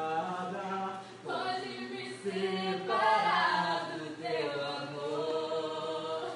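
Several voices singing a slow song with little or no accompaniment, holding long notes in phrases of one to two seconds.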